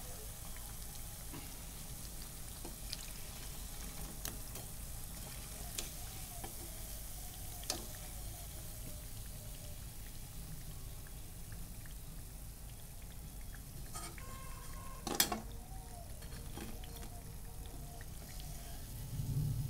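Arbi-leaf vadas deep-frying in a kadhai of hot oil, a low steady sizzle, with a few sharp clicks of the metal slotted spoon against the pan; the loudest click comes about fifteen seconds in.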